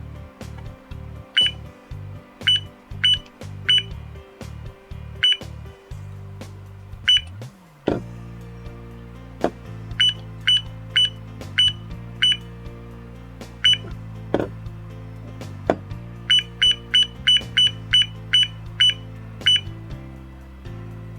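Short high-pitched electronic beeps from an LED alarm clock's setting buttons, one per press, coming singly and then in quick runs of rapid presses as the time and date values are stepped. Background music plays underneath, with a few sharp clicks.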